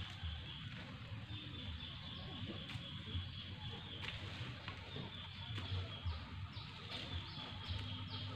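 Rural outdoor ambience: a steady high chirring with short chirps repeating over it in the second half, above a low steady rumble.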